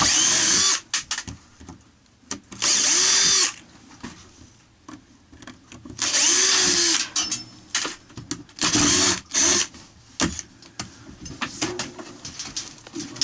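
Makita cordless drill-driver running on screws in wooden floor planks. It runs in four trigger-pulls of about a second each, with short blips between, the motor speeding up and winding down each time.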